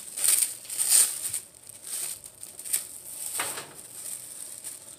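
Plastic packaging of raw ground beef crinkling and rustling in a few short bursts as the meat is unwrapped and turned out into a pan.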